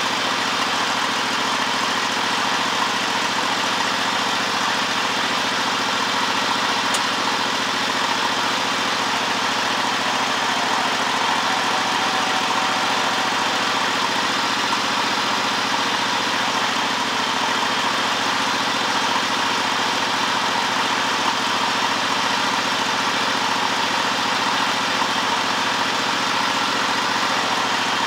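Riding garden tractor's engine running steadily at a constant speed while its freshly rebuilt Hydro-Gear hydrostatic transmission is run to purge air from the oil.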